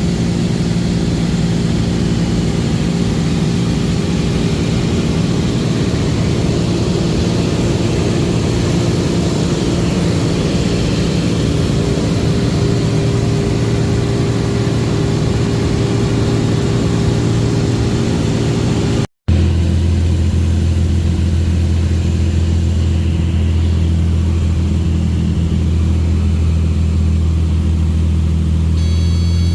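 Propeller aircraft engine droning steadily at cruise. After a short break about two-thirds of the way through, a lower, heavier steady drone takes over.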